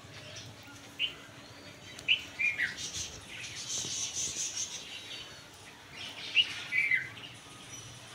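Small birds chirping: short, quick, falling chirps in little groups about a second in, again around two to three seconds in, and again near the seven-second mark, with a higher, thinner twittering in between.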